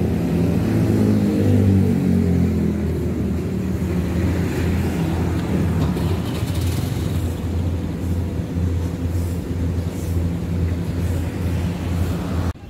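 Street traffic, with a motor vehicle engine running close by: its pitch falls over the first couple of seconds, then it settles into a steady low hum.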